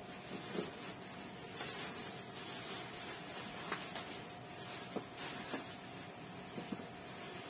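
Steady hiss of room noise with a faint steady hum and a few soft clicks.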